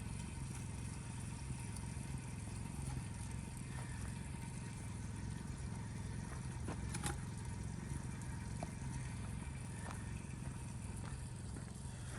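Campfire cooking with a steady low rumble underneath and a few sharp pops and clicks, the loudest about seven seconds in.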